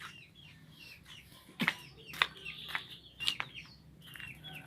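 Chickens calling: a stream of short, high, down-slurred peeps, several a second, with a few sharp clicks or knocks between about one and a half and three and a half seconds in.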